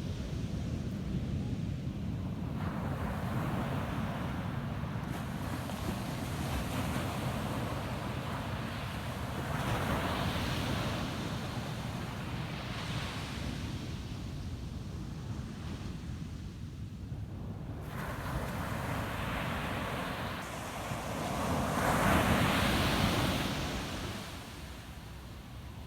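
Ocean surf breaking on a beach: several waves swell in and wash out over a steady low rumble, the loudest wave near the end.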